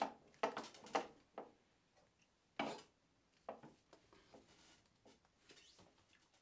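A cable being handled and fitted into a plastic cable drag chain: about six sharp clicks in the first three and a half seconds, then fainter rubbing and rustling.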